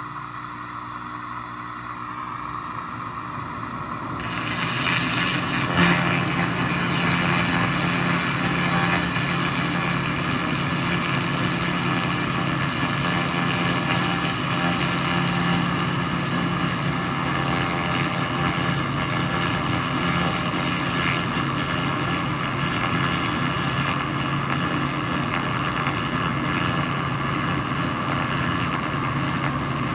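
SFX 2000 laser rust remover running with a steady machine hum. About four seconds in a hiss comes in, and about two seconds later a louder, steady low hum joins and holds.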